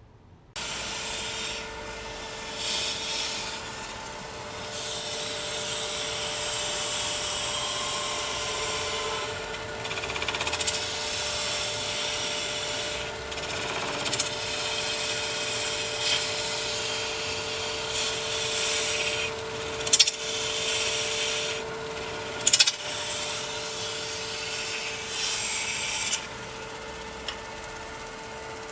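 Wood lathe running with a steady motor whine that starts just after the opening, while a tool works the spinning wood in repeated scraping passes.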